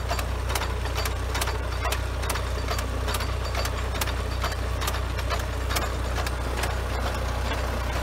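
John Deere tractor engine running steadily while pulling a mechanical transplanter, with a sharp click about twice a second from the planting units.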